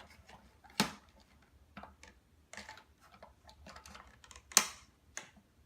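Irregular clicks and taps of plastic Play-Doh toy pieces being handled, with two sharper knocks, one about a second in and one near the end.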